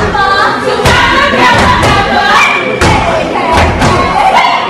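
A women's step team chanting together in unison, with a few heavy stomps on a wooden stage and a crowd behind.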